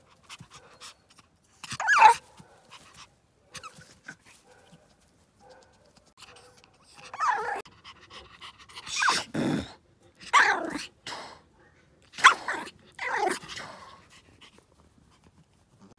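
Petit brabançon dog giving about six short vocal sounds with sliding pitch, spaced a second or two apart, with quiet stretches between them.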